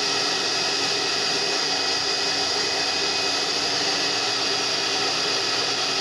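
Tecnoelétrica Fórmula 6000 Turbo hair dryer running steadily: an even rush of blown air over a constant motor hum, with no rattle.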